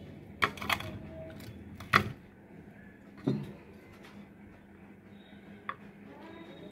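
Scattered light clicks and clinks of plates and a steel ladle while vadas are put on a plate and sambar is ladled over them, the loudest click about two seconds in and a dull knock a second later.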